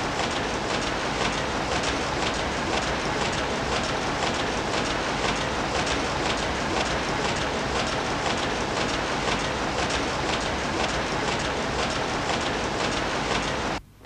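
Newspaper rotary printing press running at speed: a steady, dense, rapid mechanical clatter that cuts off abruptly near the end.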